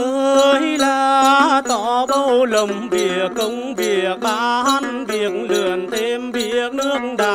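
A woman singing a hát then melody in long, bending, wavering notes, accompanied by a plucked đàn tính gourd lute.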